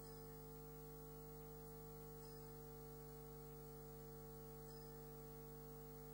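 Near silence apart from a steady electrical mains hum with several overtones.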